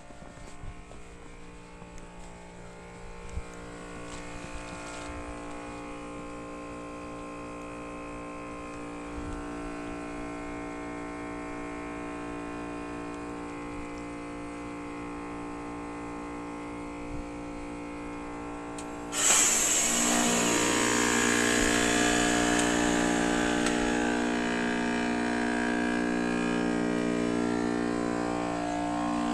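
The outdoor unit of a 2011 Bryant Evolution 5-ton two-stage heat pump runs during a defrost cycle: a steady compressor hum with several tones that slowly shift in pitch. About 19 seconds in, a sudden loud whoosh of refrigerant breaks in as the reversing valve shifts, and it carries on as a loud hiss that slowly fades.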